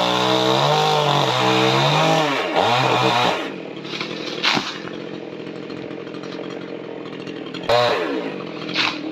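Two-stroke chainsaw cutting into a tree, its engine at high revs with the pitch sagging and recovering under load for about three seconds. It then drops to a lower, steady running sound, with a short rev again near the end.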